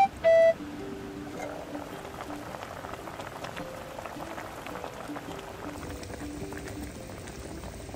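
A pot of meat-and-vegetable stew bubbling at a simmer, a steady fine crackle of small pops, under soft background music. At the very start, a short, loud two-note chime stands out as the loudest sound.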